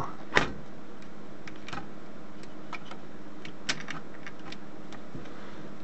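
Small screwdriver turning screws in the plastic frame of a calculator's printer assembly: scattered light clicks and ticks, the loudest about half a second in and another near four seconds in.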